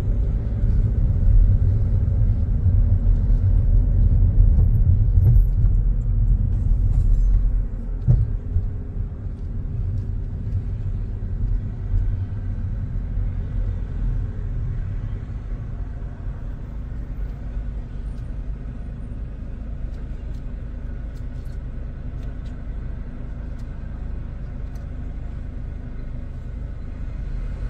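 Car engine and road noise heard from inside the cabin: a low rumble, louder for about the first eight seconds while driving, then dropping to a quieter steady hum as the car slows and waits.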